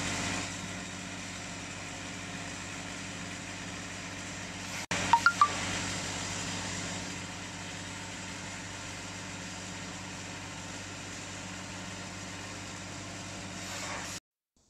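Steady hum of cooling pad production-line machinery running, with several steady low tones. About five seconds in come three short, sharp beeps.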